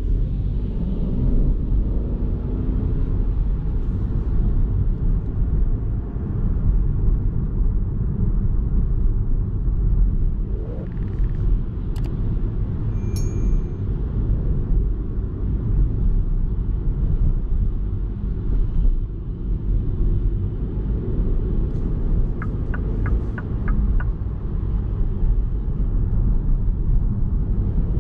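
2021 MINI Cooper S E ALL4 Countryman plug-in hybrid on the move: a steady low rumble of road and drivetrain noise. A sharp click and a brief high beep come about halfway through, and a quick run of about five light ticks comes near the end.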